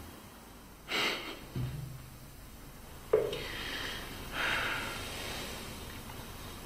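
A man breathing through his nose: a sharp sniff or snort about a second in, then two longer sighing exhales, with a small click around three seconds in.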